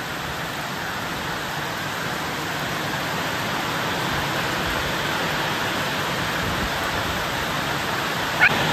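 Heavy rain pouring steadily onto the ground and plants, a dense even hiss that grows slightly louder. A brief high chirp cuts through near the end.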